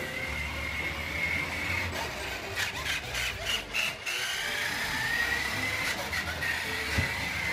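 Motorized toy dump truck driving across a hardwood floor: its small electric motor whines steadily with a slightly wavering pitch over the low rumble of the plastic wheels on the wood. A few clicks about three seconds in.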